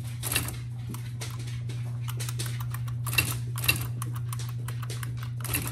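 Number keys on an IBM Wheelwriter 6 Series II electronic typewriter's keyboard being pressed, a run of irregular light key clicks with two louder ones a little past the middle, over a steady low hum. The number keys are faulty and do not print, which the owner thinks could be an issue with the keyboard membrane.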